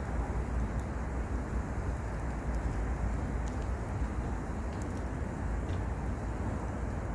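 Wood fire burning in a mesh fire pit, a few faint scattered crackles over a steady low rumbling noise.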